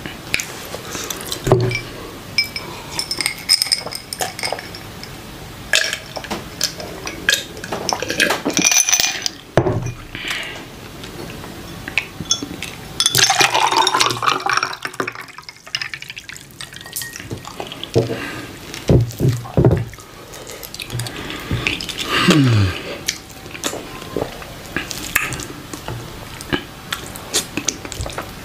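Close-up wet eating sounds of fufu and slimy okra soup eaten by hand: fingers squelching in the soup, lip smacks and chewing, with irregular small clicks against the plate.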